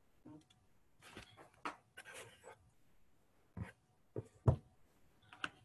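Faint stylus handling on a drawing tablet: soft scratchy rustles, then four short taps or clicks spread over the last two seconds, the loudest about four and a half seconds in.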